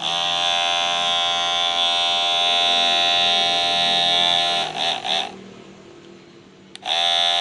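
Kemei 1031 cordless hair clipper switched on after repair, its motor and blade buzzing steadily. About four and a half seconds in it stops with a brief sputter, then runs again for about a second near the end.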